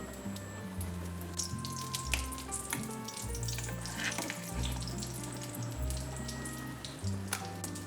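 Food sizzling in a frying pan, with a few light clicks, over background music of held low notes.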